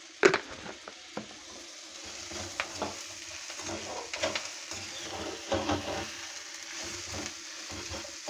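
Onions, tomatoes and spices sizzling as they fry in a pan, with a perforated steel ladle stirring and scraping through them in repeated strokes. A couple of sharp knocks come in the first second or so.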